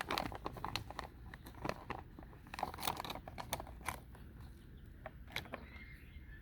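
Nuts, likely pecans, being crunched and cracked at close range: an irregular run of crisp clicks and cracks.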